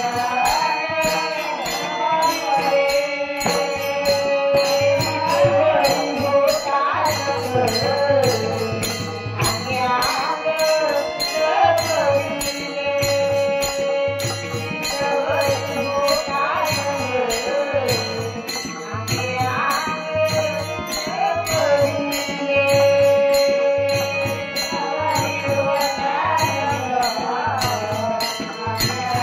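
Marathi devotional bhajan (a gaulan): a woman's voice sings a gliding melody over a steady drum beat and rhythmic jingling of small hand cymbals.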